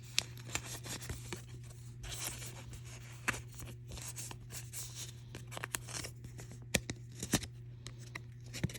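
A trading card being slid into a plastic card sleeve and handled: light scrapes and rustles with sharp little ticks scattered throughout, over a low steady hum.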